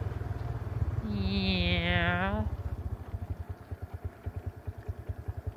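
ATV engine running at low revs with an even chugging beat. About a second in, a man's voice holds a long, wavering note for about a second and a half over it.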